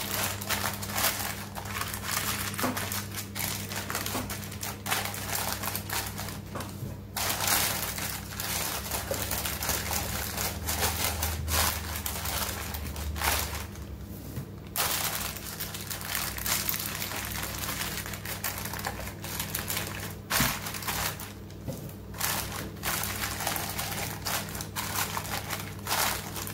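Baking paper crinkling and rustling as hands tuck and press it down into a glass baking dish, in stretches broken by short pauses.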